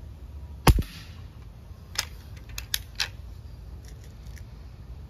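Break-barrel .177 air rifle (Umarex Heckler & Koch MP7) firing a lead pellet: one loud sharp shot about two-thirds of a second in, with a quick second crack right behind it and a brief ring. A few smaller sharp clicks follow around two to three seconds in.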